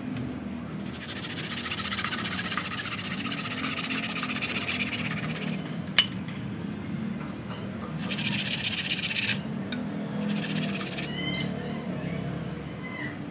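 Rapid scrubbing and scraping strokes as soil is cleaned off the knobbly trunk and roots of a ficus bonsai stock, in three spells, the longest first. There is a single sharp click midway.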